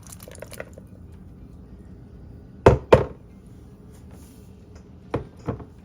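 Two pairs of sharp knocks in quick succession, one pair near the middle and one near the end, typical of a container or utensil tapped against a bowl while garbanzo beans are added.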